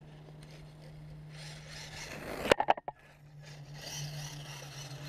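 Traxxas 1/16 rally RC car driving and sliding on asphalt: a rushing noise of tyres and motor builds, breaks into a few sharp clicks about two and a half seconds in, then comes back, over a low steady hum.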